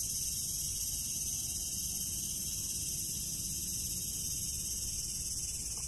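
Steady high-pitched chorus of insects, with a faint low rumble underneath.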